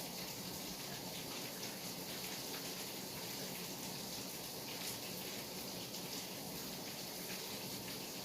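Steady night rain falling, an even hiss with faint scattered drop ticks.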